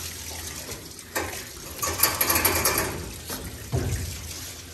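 Water splashing and trickling in a stainless steel grooming tub while a wet Yorkie puppy is bathed, loudest for about a second midway, with a knock about a second in and a dull thump near the end.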